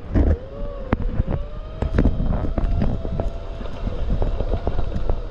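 Segway's electric motor whining, its pitch rising and falling with speed, under wind on the microphone and short knocks and rattles from the ride.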